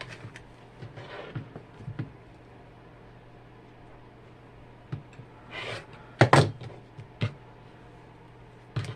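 Scattered knocks and clunks of tools and objects being handled and set down on a sewing work table, the loudest a short cluster about six seconds in, over a faint steady hum.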